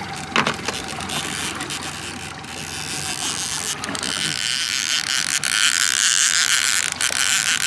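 Trolling boat on open water: a steady low motor hum under a rushing hiss, with a sharp click about half a second in. The hiss grows much louder from about four seconds.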